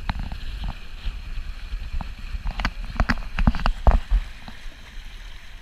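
Wind rumbling on the microphone aboard a Dart 18 sailing catamaran, with a run of sharp knocks and cracks from the sail and gear about halfway through.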